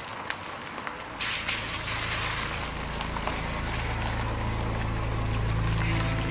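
A car moving off on a wet road, its tyres hissing on the wet pavement over a low engine hum. The hiss comes in suddenly and strongly about a second in.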